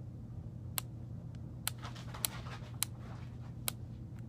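Gonal-f injection pen's dose knob being dialed up, giving five single sharp clicks about half a second to a second apart, with a little soft handling rustle near the middle.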